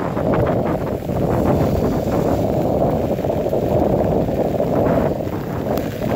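Strong thunderstorm wind blowing over the microphone: a loud, steady rush of wind noise, heaviest in the low end.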